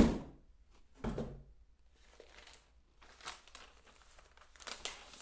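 Monitor packaging being handled: a sharp knock at the start and a smaller one about a second in, then faint crinkling and rustling of plastic-wrapped accessories in a styrofoam insert.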